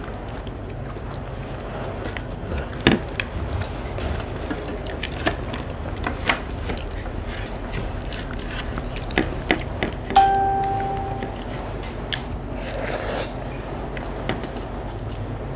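Eating rice by hand from a plate: small clicks and squishes of fingers mixing rice and curry against the plate, with chewing, over a steady low hum. About ten seconds in, a sharp clink rings for about a second.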